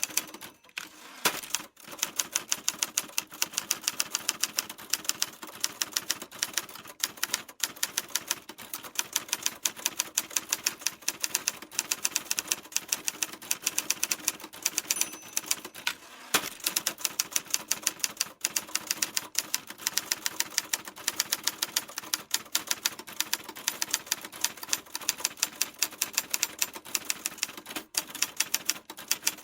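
Typewriter typing: a fast, steady run of sharp key clacks, several a second, with a few brief pauses.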